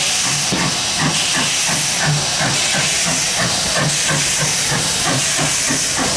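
SE&CR H class 0-4-4 tank engine No. 263 passing close by with its train: steam hissing steadily over a quick, regular beat from the locomotive.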